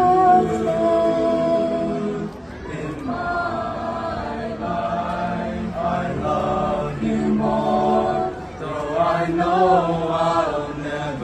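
Mixed youth choir singing a cappella, holding sustained chords in several voice parts with no clear words, changing chord every second or two.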